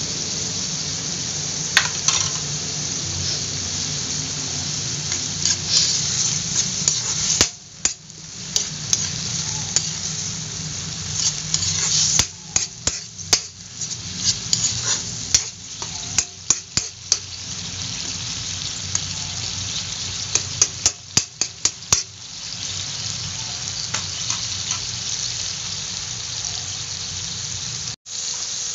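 Tomatoes, onion and garlic sizzling with miso paste in a hot metal wok while a metal spoon stirs and scrapes the pan. The spoon clicks against the wok in quick runs about halfway through and again a little later.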